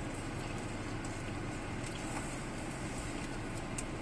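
Steady low rumble inside a car cabin with the engine running, with a few faint clicks.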